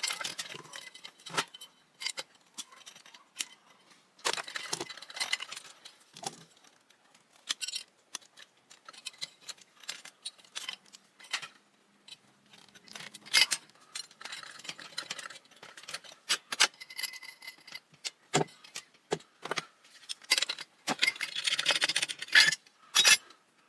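Irregular clinks, clicks and rattles of small metal fan parts and hand tools being handled while a ceiling fan is dismantled, with busier rattling spells about four seconds in and again near the end.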